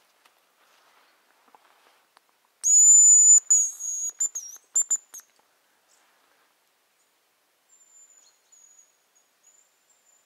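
Hazel grouse decoy whistle blown close by: a loud, very high thin whistle held for most of a second, then a run of shorter broken notes with a small dip in pitch, imitating the hazel grouse's song to call a bird in. A much fainter high thin whistle follows near the end.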